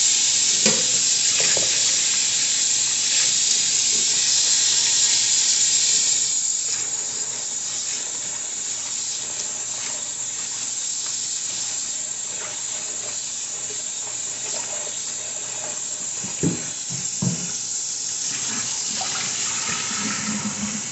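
Kitchen sink tap running steadily, water splashing into the sink. The flow turns quieter about six seconds in, and two knocks come near the end.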